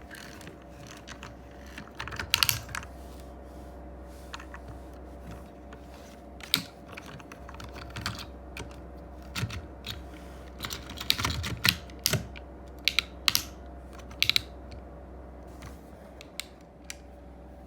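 Plastic toy vehicles being handled: irregular sharp clicks and knocks, some in quick clusters, over a faint steady hum.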